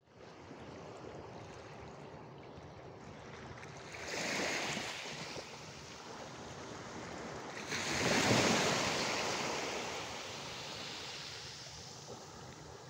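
Sea waves washing in on the shore over a steady low wash of water, with two surges, one about four seconds in and a louder one about eight seconds in that fades away slowly.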